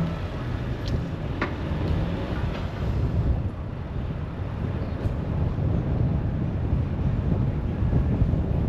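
Road noise of a car driving: a steady low rumble of tyres and engine with some wind, and two faint ticks about a second in.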